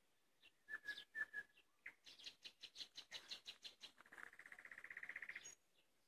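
Nightingale singing one song phrase: a few clear whistled notes, then a run of sharp repeated notes at about six a second, ending in a very fast rattling trill that stops about five and a half seconds in.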